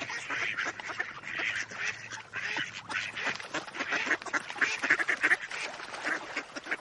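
Many ducks quacking at once, the quacks overlapping in a dense, continuous chorus.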